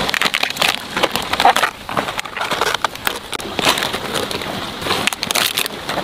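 Crisp cabbage leaves crunching and snapping as cabbage heads are broken off and handled, an irregular run of crackles.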